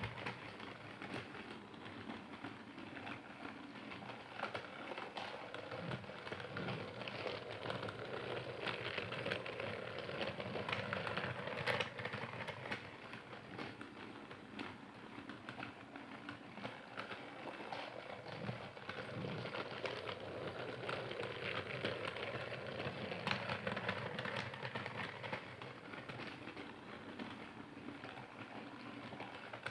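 Percy toy train running: a steady rattling clatter with many small irregular clicks and a few louder clicks.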